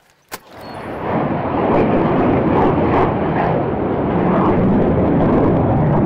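Jet aircraft flying over the airfield: loud, steady jet engine noise that swells in over about a second after a short sharp click near the start.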